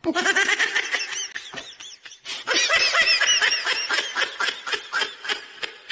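Rapid, high-pitched laughter, most likely an edited-in laugh sound effect, with a short break about two seconds in.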